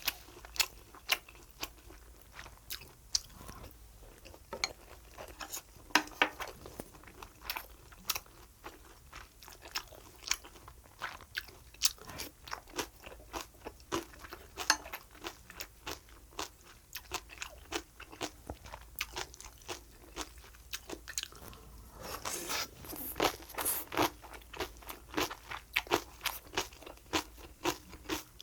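A person chewing and crunching food close to the microphone: many irregular crisp crunches and wet mouth clicks, getting busier a little past two-thirds through.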